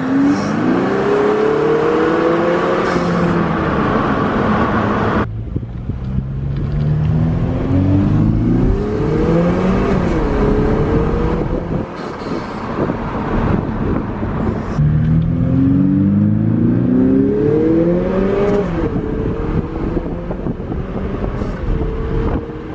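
Lexus IS200t's 2.0-litre turbocharged four-cylinder, breathing through a newly fitted HPS performance intake, heard with the window down as the car accelerates hard three times. Each time the engine note climbs in pitch, dips and jumps with an upshift near the top, then falls away; near the end it holds a steadier note.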